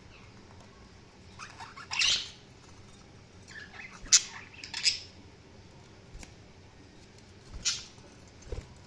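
Budgerigars giving short, sharp chirps and squawks in scattered bursts: a cluster about two seconds in, several more between three and a half and five seconds, and one near the end. A soft low knock follows just before the end.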